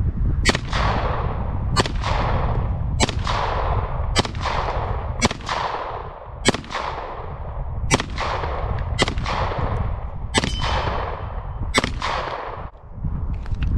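Canik SFX Rival 9mm pistol firing ten slow aimed shots, about one every 1.2 seconds, each crack trailing off over about a second.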